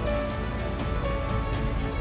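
Instrumental background music with sustained notes and a soft, light beat.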